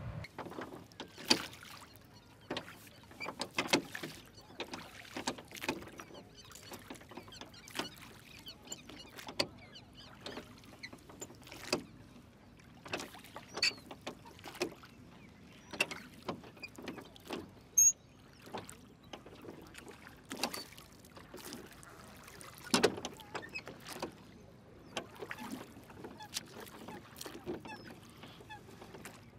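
Rowing boat pulled with wooden oars: a string of knocks and splashes from the oars, about one every second.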